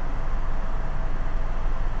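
Airbus H125 helicopter in flight, heard from inside the cockpit: the steady drone of its main rotor and single turbine engine, with no change in pitch or level.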